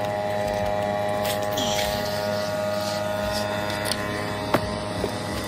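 A motor or engine running at a steady speed with an even, constant hum, and a single sharp click about four and a half seconds in.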